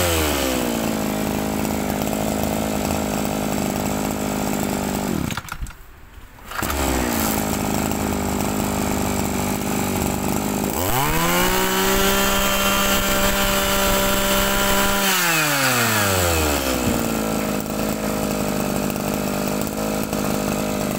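Kioritz 2650G two-stroke brush cutter engine running under demonstration. It drops from high revs to idle, falters and nearly dies about five seconds in, then picks up and idles again. Near the middle it is throttled up and held at high revs for about four seconds before falling back to idle.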